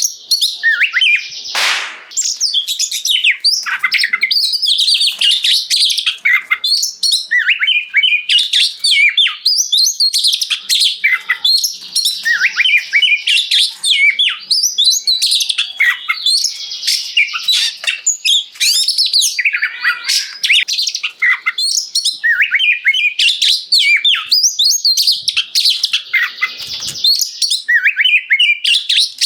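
Oriental magpie-robin (kacer) singing loudly and without a break: a fast, varied stream of high whistles, chirps and trills.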